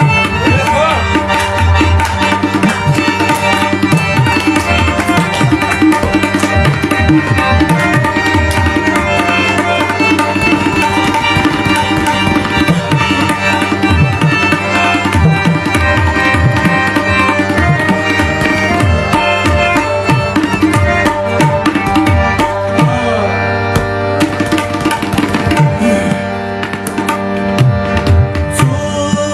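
Tabla pair played rapidly in an instrumental passage, with many fast strokes over steady held notes from an accompanying instrument.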